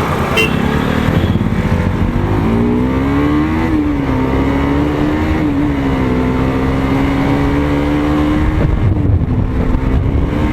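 Motorcycle engine running under way, its note rising twice as it speeds up, then holding steady and easing off near the end, with road and wind noise underneath.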